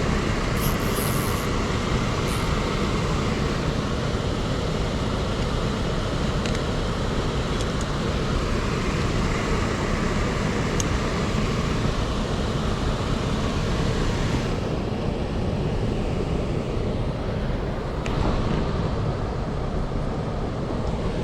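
An HVAC air handler running with its blower on, a steady rush of air and fan noise. The higher hiss drops away about two-thirds of the way through.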